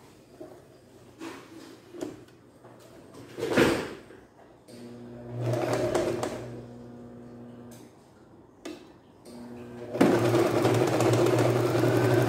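Singer Start 1306 electric domestic sewing machine stitching in two short runs: one about five seconds in that speeds up and then slows, and a longer, louder one from about ten seconds in. Before the first run there are a few knocks and rustles as the fabric is arranged under the presser foot.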